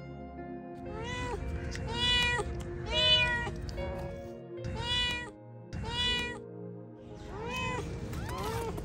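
White mother cat meowing repeatedly, about seven loud calls roughly one a second, each rising and then falling in pitch: insistent, worried calls from a mother fretting over her kittens. Background music plays steadily underneath.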